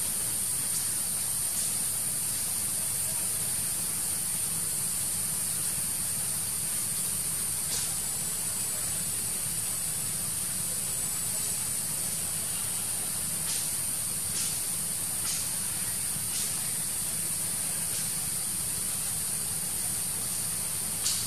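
Steady high-pitched drone of forest insects, with faint short ticks now and then.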